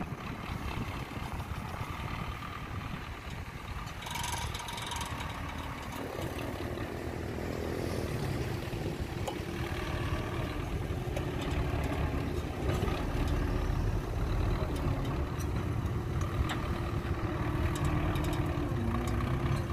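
Belarus MTZ tractor's diesel engine running steadily under load while towing a heavily loaded cassava trailer. The engine note becomes clearer about six seconds in and grows slowly louder as the tractor draws nearer.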